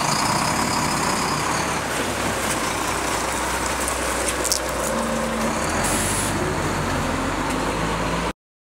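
Flatbed tow truck's engine running steadily at idle amid outdoor street noise, with a few faint clicks midway; it all cuts off abruptly near the end.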